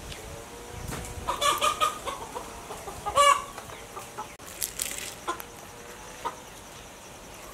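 Chickens clucking: a quick run of clucks about a second in and a louder, drawn-out call around three seconds, followed by a few light clicks.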